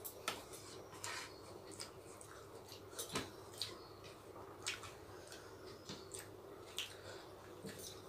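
Quiet, irregular wet clicks and smacks of rice and chicken curry being eaten by hand: fingers mashing rice on plates and mouths chewing, a few soft clicks a second.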